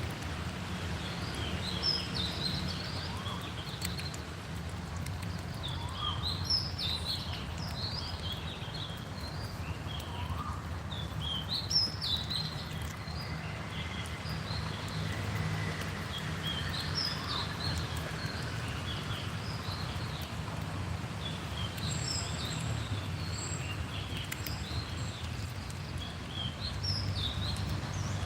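Birds chirping in short clusters of high notes every few seconds, over a steady low rumble of wind on the microphone.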